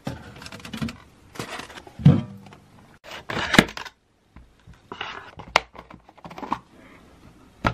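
Plastic food containers being handled and set down: irregular clicks, knocks and crinkles of a yogurt cup and a clear plastic clamshell cake box, with the sharpest clicks about three and a half and five and a half seconds in.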